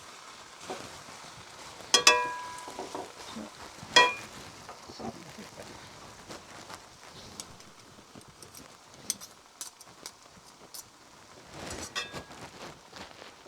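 Metal utensils stirring noodles in a pan: two loud ringing clanks about two and four seconds in, then lighter scattered clicks and taps.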